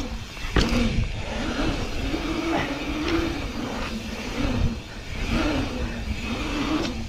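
Knobby mountain-bike tyres humming on pavement, the hum rising and falling in pitch as the bike speeds up and slows over the pump track's rollers, over a low wind rumble on the handlebar camera. A sharp clunk sounds about half a second in.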